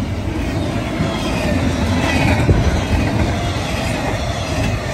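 Double-stack intermodal freight train's well cars passing close by at speed: steady rumble and rattle of steel wheels on the rails, with a faint wheel squeal about halfway through.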